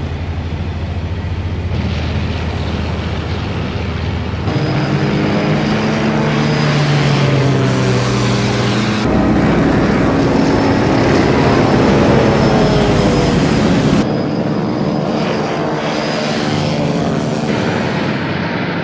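Several propeller-driven WWII fighter planes' engines droning in flight. The pitch and mix shift abruptly every few seconds. The middle stretch is louder, with the engine pitch swelling and bending as planes pass.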